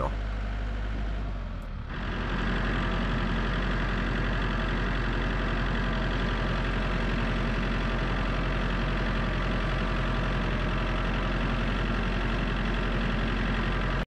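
Compact utility tractor's engine running at a steady speed as it drives along a trail. It is fainter for the first two seconds, then heard up close from the driver's seat, a louder steady engine hum.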